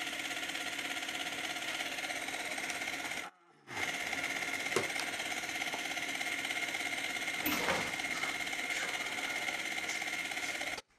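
Electric drive motor of an antiskid test set spinning an aircraft wheel-speed DC tach generator at about 1000 RPM: a steady whine with a high tone. It drops out for a moment a little after three seconds in.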